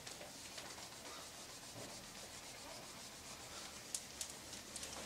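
Faint rubbing of a whiteboard eraser wiped across a whiteboard, erasing the writing.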